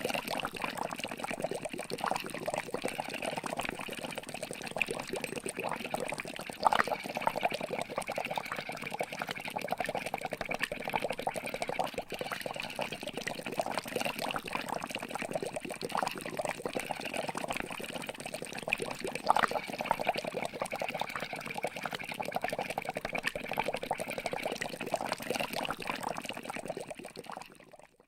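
Water bubbling continuously, a dense stream of small gurgling pops with a couple of louder bloops, fading out near the end.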